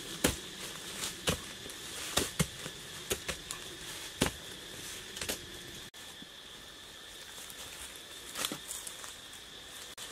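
Wooden digging poles jabbed again and again into hard earth, a string of sharp, irregular knocks and thuds that thin out after about six seconds, with a steady insect drone behind.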